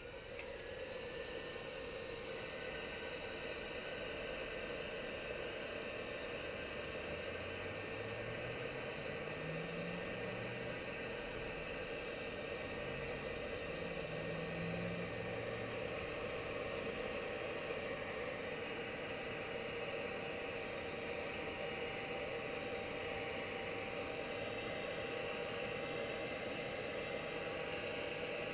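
Steady machine hum, like a small motor or fan running, rising over the first couple of seconds and then holding level.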